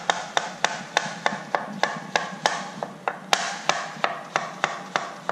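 Kitchen knife slicing peeled plantains into thin rounds on a plastic cutting board, the blade tapping the board about three to four times a second, with a short pause about three seconds in.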